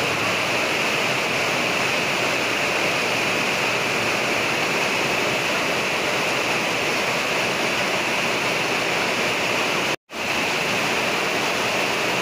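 Heavy rain falling steadily, an even dense hiss. It cuts out for an instant about ten seconds in.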